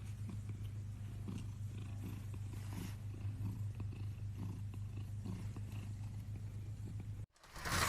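Domestic cat purring close to a microphone, a steady low pulsing rumble. It cuts off suddenly near the end, and a short whoosh begins.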